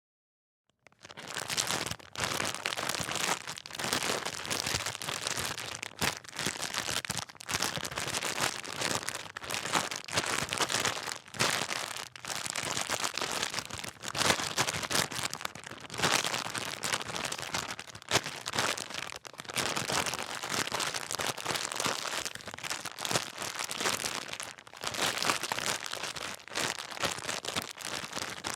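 Plastic bag being crinkled and rustled by hand, a dense irregular crackling that starts about a second in and goes on without a break.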